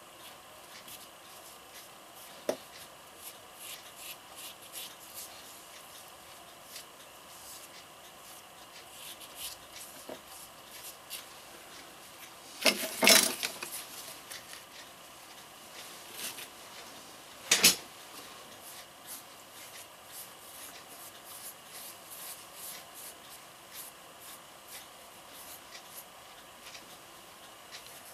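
Small brush dabbing and rubbing acrylic filler into cracks in a concrete statue's legs: faint, irregular scratchy strokes. A louder clatter of something handled or set down comes about 13 seconds in, and a single sharp knock about 17 seconds in.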